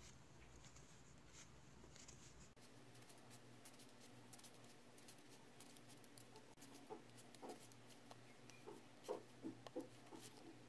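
Faint clicking and scraping of wooden knitting needles and yarn as stitches are worked, with a few slightly louder taps in the second half.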